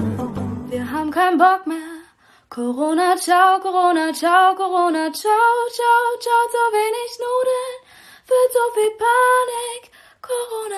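A woman singing a melody, largely unaccompanied, in sung phrases with held notes and short pauses between them; backing music underneath stops about a second in.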